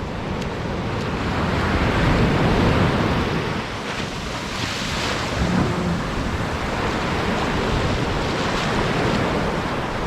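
Ocean surf breaking and washing up the beach in a steady wash of noise, swelling loudest about two to three seconds in.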